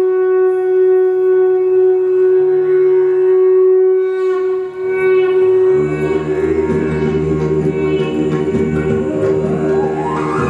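Recorded dance music: one long held flute note, then fuller accompaniment with a deep bass comes in about six seconds in, and a rising glide sounds near the end.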